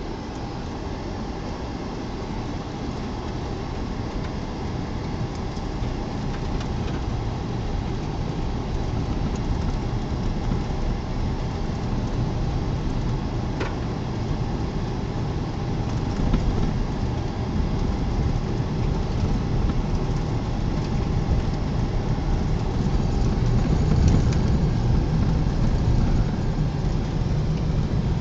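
A car driving, its engine and tyre noise making a steady low rumble that slowly grows louder, with one brief click about halfway through.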